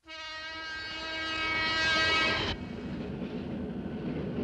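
Electric commuter train's horn sounding one steady note for about two and a half seconds, growing louder, then cutting off sharply, followed by the steady rumble and clatter of the train running.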